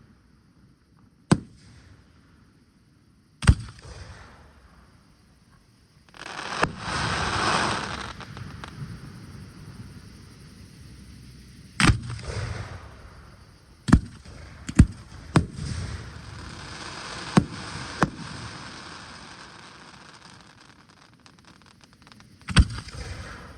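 Aerial fireworks display: sharp shell bursts every few seconds, about nine in all, with a louder, longer crackling hiss around seven seconds in.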